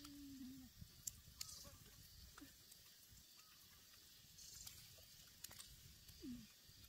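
Near silence: faint outdoor ambience with a few small clicks and a few brief, low, voice-like sounds.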